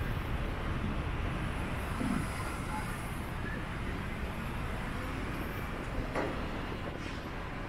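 Steady city street traffic noise, with a short knock about six seconds in.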